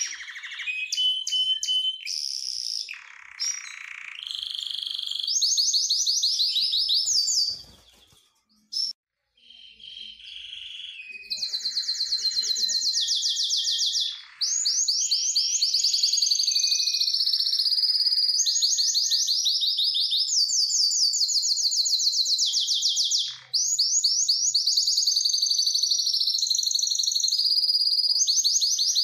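Male domestic canary singing: long, high-pitched runs of very fast trills that shift in pitch from one run to the next, with a brief pause about a third of the way through.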